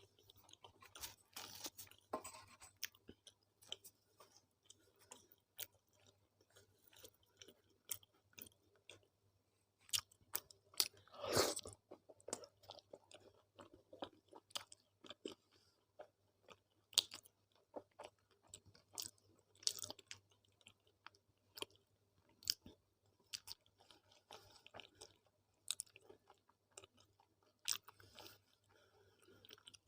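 A person chewing and biting a meal of tawa roti, arhar dal and methi aloo sabzi close to the microphone: a run of irregular soft mouth clicks and smacks, with one longer, louder burst about eleven seconds in. A faint steady hum sits underneath.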